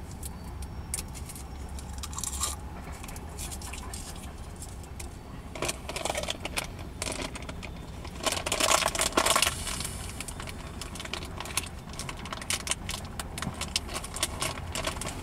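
Freight cars rolling past at a distance: a steady low rumble with scattered metallic clanks, clicks and scrapes from wheels and couplers, and a louder burst of rattling about eight to nine seconds in.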